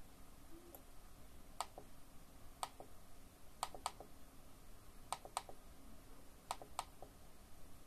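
Sharp clicks of computer keys or buttons being pressed, single and in close pairs, about one a second.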